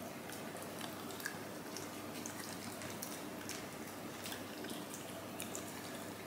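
A dog licking and nibbling at a muffin held in a hand: faint, scattered wet mouth clicks and smacks.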